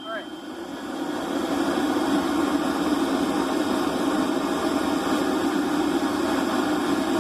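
Steady rushing of a forge's fire and air, building up over the first couple of seconds and then holding even.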